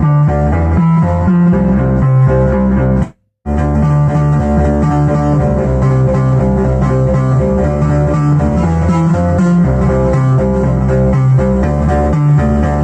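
Analog synthesizers (Behringer MS-1 and Pro-1) playing a bass-heavy line through a Behringer Virtualizer Pro DSP2024P effects processor. The sound cuts out completely for a split second about three seconds in, then resumes.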